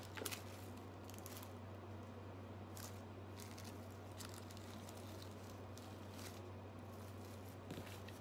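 Faint rustling and a few scattered small clicks of products and packaging being handled and moved around in a box, over a steady low hum.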